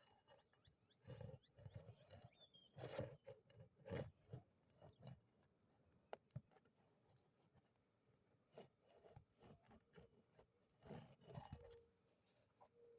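Faint, scattered scraping and clicking of a hand pry tool working under brittle asphalt shingles to pull roofing nails, in short bursts with pauses between.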